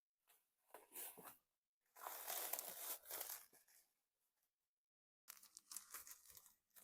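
Faint tearing and crinkling of the wrapping on a packed bag of gari being opened, in a few short bouts.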